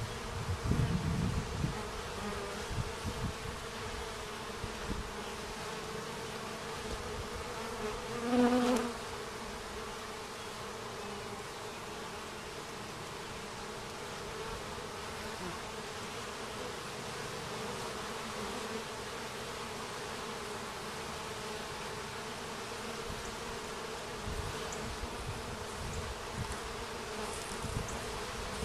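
Honeybees buzzing at the entrance of their hive: a steady drone of many bees coming and going. The buzz swells loudly for about half a second around eight seconds in. There is some low rumbling in the first couple of seconds.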